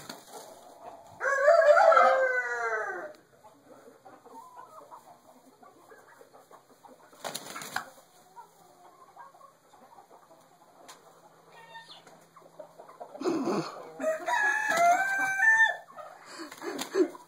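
A rooster crows twice, once about a second in and again near the end, each crow a long call falling in pitch. Between the crows come brief flurries of wing flapping from two roosters sparring.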